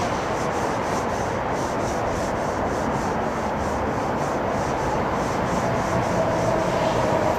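Steady rushing rail noise of an approaching Amtrak Acela Express train, with an even ticking about three times a second. A steady whine joins it about five and a half seconds in as the trainset draws closer.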